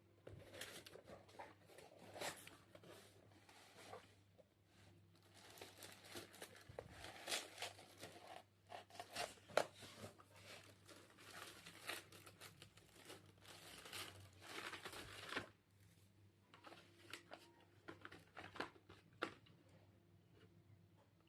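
Packaging being torn open and crinkled by hand: irregular rustling and tearing with sharp crackles, busiest for the first fifteen seconds, then softer scattered rustles.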